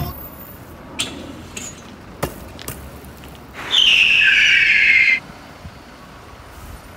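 A few sharp knocks, then about halfway through a squeal lasting about a second and a half that falls in pitch, from a stunt scooter rolling on a smooth tiled floor.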